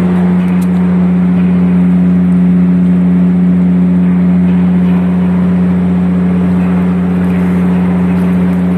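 Ship's bilge pump running, a steady loud hum with one low drone and its overtones, as it draws rainwater out of a cargo hold. The suction is drawing well and the water level is dropping fast.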